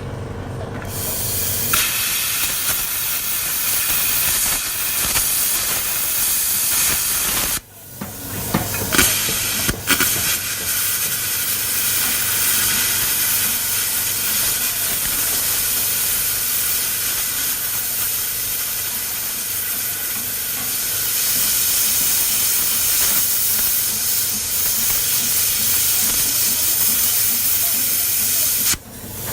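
Loud steady hiss of compressed air blowing through a plasma cutter's torch, supplied by an air compressor. It cuts off suddenly about eight seconds in, restarts with a few sputters, runs on, and stops just before the end.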